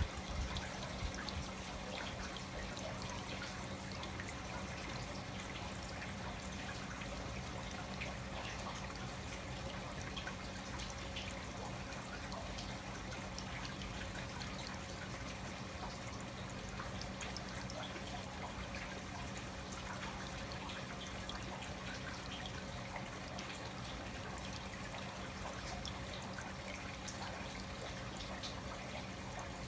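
Water steadily trickling and dripping, with faint scattered drips and a low steady hum underneath.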